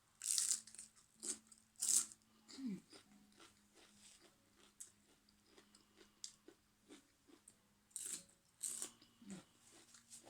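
Close-up eating: crisp crunching bites and chewing of fresh raw vegetables with shrimp, a cluster of loud crunches in the first two seconds and again about eight seconds in, with quieter chewing between.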